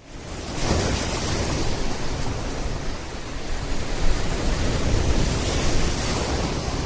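Steady, even rushing noise on a body camera's microphone, fading in over the first half second after a brief cut to silence.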